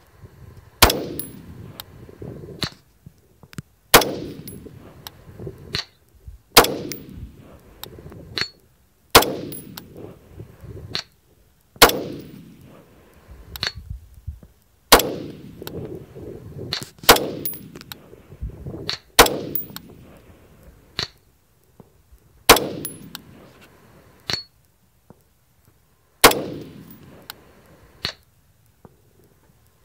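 Colt AR-15 A4 rifle in .223/5.56 firing single shots in a steady string, about ten shots two to four seconds apart. Each is a sharp crack with a fading echo behind it.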